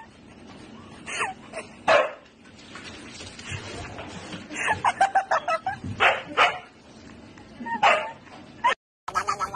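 Siberian husky barking and yipping in short separate bursts, with a quick run of yips about halfway through; the sound cuts off abruptly near the end.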